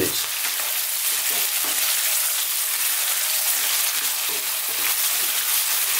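Cubes of beef frying in hot coconut oil with curry leaves and dried red chillies in a non-stick wok, stirred with a wooden spoon: a steady sizzle as the outside of the meat browns over above-medium heat.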